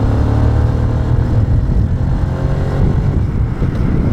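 Yamaha LC135 motorcycle's single-cylinder engine running at road speed; its steady note fades into a rougher sound about three seconds in.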